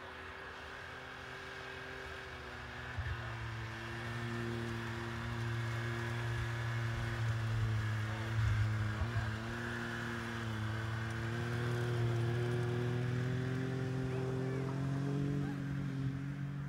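Snowmobile engine running steadily as the sled rides across the snow, getting louder over the first half and rising in pitch near the end.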